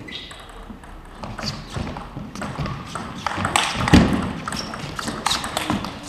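Table tennis rally: a celluloid-type ball ticking sharply off bats and the table in quick succession, with a heavier thump about four seconds in.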